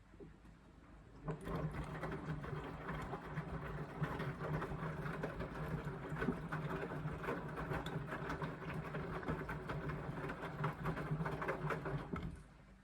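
Indesit washing machine's drum motor turning the drum through a full load of laundry: a steady hum with a busy rattle. It starts about a second in and stops shortly before the end, one tumbling stroke of the wash phase.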